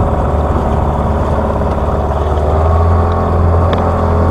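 Engine of a small wooden fishing boat running steadily under way, a continuous low drone that grows a little louder about three seconds in.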